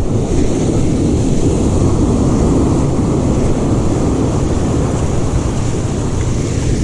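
Wind buffeting the microphone on an ocean beach, with breaking surf: a steady, loud low rumble.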